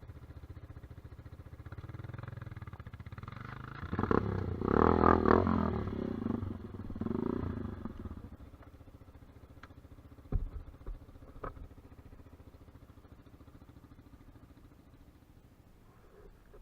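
Off-road motorcycle engine idling, revved hard for about four seconds, then settling back to a quieter idle. A few sharp knocks come a little past the middle.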